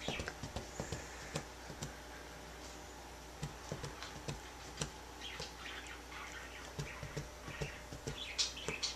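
Faint rustling and scattered small clicks as a dog squirms on its back on a cloth-covered couch, with a few short soft hisses about halfway through.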